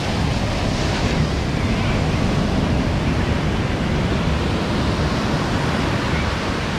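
Ocean surf breaking and washing up a sandy beach close by, a steady rush of foam and water, with wind buffeting the microphone.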